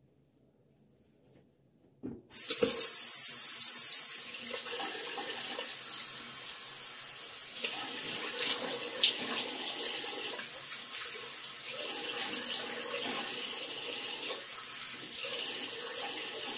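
Water tap turned on about two seconds in and running into a sink, a harder stream for the first two seconds and then steadier, with a few splashes around the middle.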